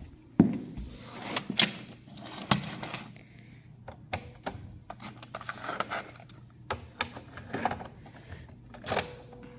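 Irregular clicks and knocks with rustling in between, like objects being handled and set down, the sharpest knock about half a second in.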